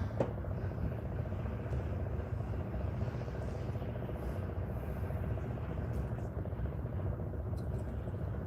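Fishing boat's engine running steadily: an even low rumble with a faint fast rhythm, and a single light click just after the start.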